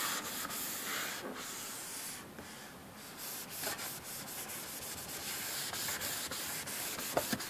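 Oil-dampened paper towel wiped back and forth over varnished wood cabinet doors: continuous rubbing, easing briefly about two seconds in.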